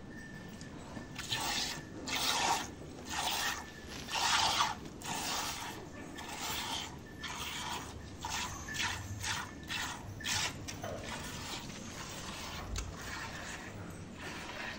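A cow being milked by hand: rhythmic squirts of milk hissing into a metal pot, about two a second, louder in the first half and fainter toward the end.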